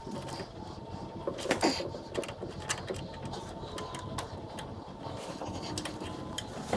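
Irregular light clicks, taps and rattles of tools and metal parts being handled, over a faint steady hum.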